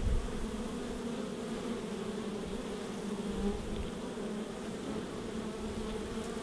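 A crowd of honey bees at a hive entrance buzzing in a steady, even drone. There is a brief low thump right at the start.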